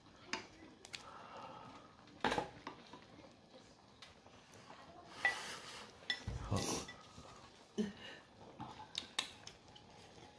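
Eating sounds: chopsticks clicking against a bowl, along with chewing and open-mouthed huffing breaths around a mouthful of food that is too hot. The breaths come as a few louder bursts about two seconds in and again around five to seven seconds in.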